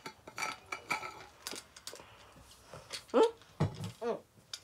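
Small clicks and clinks of a metal water bottle and its cap being handled and closed, followed about three seconds in by a few short closed-mouth hums from someone holding water in their mouth.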